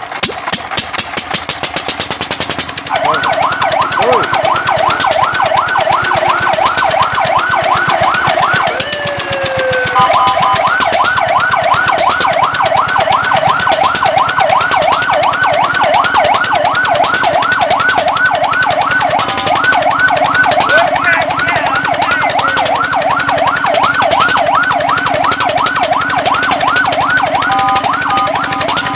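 Fire truck siren sounding a fast yelp, its pitch sweeping rapidly up and down over and over, starting about three seconds in after a fast mechanical rattle. Around nine seconds in the yelp breaks into a long falling tone, then resumes.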